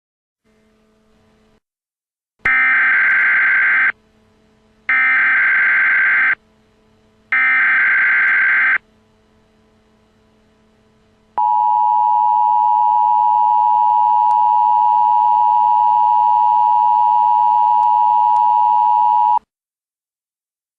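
Emergency Alert System tones: three short bursts of the SAME digital header, each a rapid warbling data screech, followed by the two-tone EAS attention signal (853 and 960 Hz) held steady for about eight seconds before it cuts off abruptly. The sequence marks the start of a new emergency alert.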